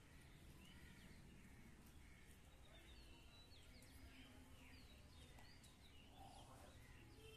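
Near silence outdoors, with faint scattered chirps of small birds over a low steady background hum.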